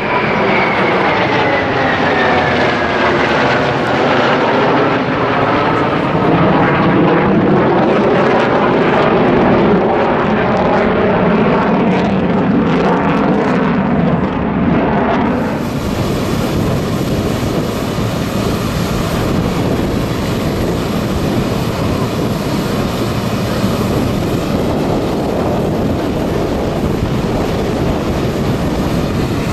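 F/A-18 Hornet fighter jets passing overhead, their engine whine sliding down in pitch as they go by. About halfway through it cuts abruptly to a steady rushing noise.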